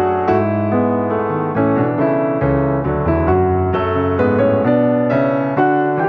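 Background piano music: a steady stream of notes and chords.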